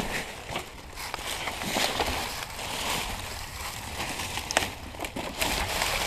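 Irregular rustling and crunching in dry leaves and brush, with scattered sharp crackles.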